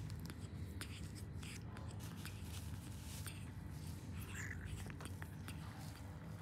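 Baby monkey sucking milk from a plastic feeding bottle: small wet sucking clicks at an uneven pace over a low hum.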